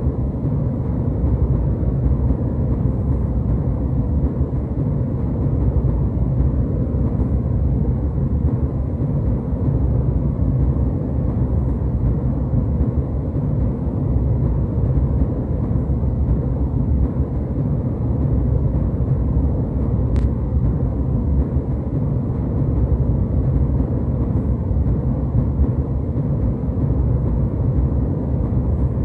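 Jet airliner cabin noise: a steady, even rumble of engines and airflow, deep and low-pitched with little treble.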